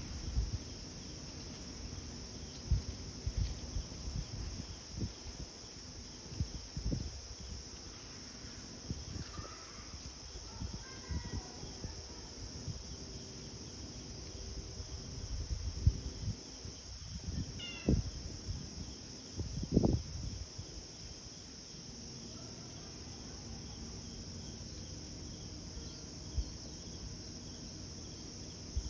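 Steady high-pitched chorus of insects, with scattered low thumps and bumps. A few short chirps come in, a descending run of them about two-thirds of the way in.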